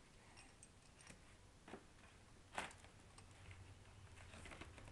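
Near silence with a few faint, short clicks and taps, the clearest a little under two seconds in and again at about two and a half seconds.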